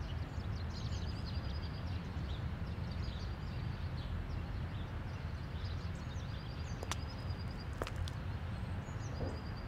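Outdoor ambience: a steady low rumble of wind with small birds chirping in short high peeps, and two faint clicks about two-thirds of the way through.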